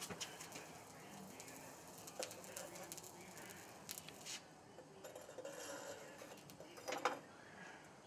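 Faint crackling and scattered ticks from a freshly poured oil-bonded (Petrobond) sand mold as its binder burns around the hot bronze, with a louder crackle near the end.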